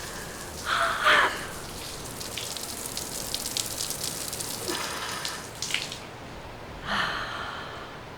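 Outdoor cold-water shower spraying and splashing on a person, with a few louder splashy bursts. The spray is shut off about six seconds in.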